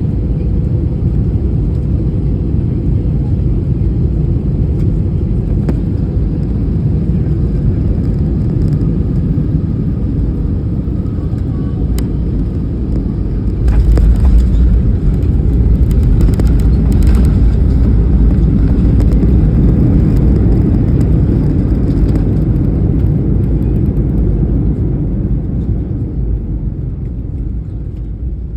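Jet airliner cabin noise: a steady engine drone on final approach, then about halfway through a sudden, louder low rumble as the wheels touch down and the plane rolls and brakes on the runway. The rumble eases toward the end as the aircraft slows.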